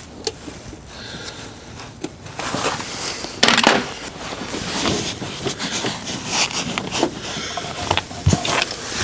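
Hand tools and coolant hoses being worked in a truck's engine bay: irregular clicks, knocks and scraping, with a louder scrape about three and a half seconds in.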